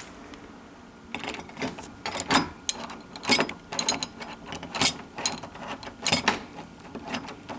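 A screwdriver tightening the through-bolts of a Kwikset door handle set, giving irregular metallic clicks and rattles from about a second in.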